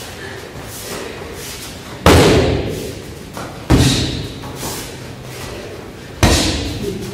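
Backfist strikes landing on a focus mitt: three sharp smacks, about two seconds in, just under four seconds in and near the end, each followed by a short echo of the hall.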